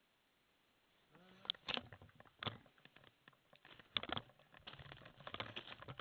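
Close rustling, crunching and irregular clicks of someone moving right by the microphone, starting about a second in: footsteps on dry leaf litter and clothing or handling noise.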